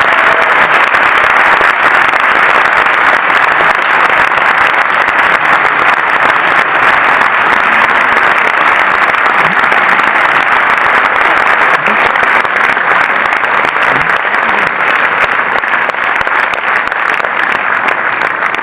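Audience applauding loudly and steadily in a cinema theatre, tapering slightly near the end.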